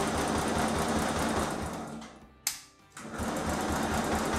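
Electric starter motor cranking the choked replacement engine of a 1963 Bolens Husky 600 lawn tractor in an even, rhythmic chugging, without the engine firing. The cranking stops a little over two seconds in, a sharp click follows in the gap, and it starts cranking again about half a second later.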